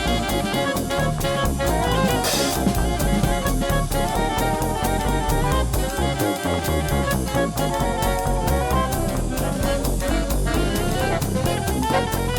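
Background music: an upbeat jazzy tune with drum kit and brass or saxophone and a steady beat.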